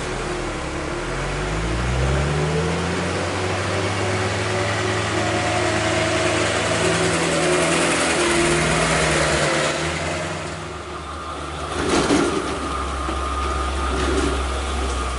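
Diesel truck engines labouring up a steep hairpin climb, revving up in the first few seconds and then pulling steadily under load. A short, loud burst of noise comes about twelve seconds in.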